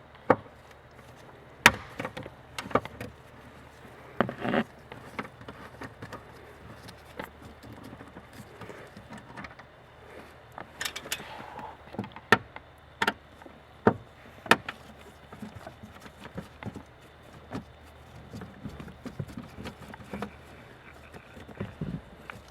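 Irregular sharp clicks, taps and knocks of hand work on plastic car trim: a T20 Torx screwdriver backing out the screws of the under-dash footwell panel.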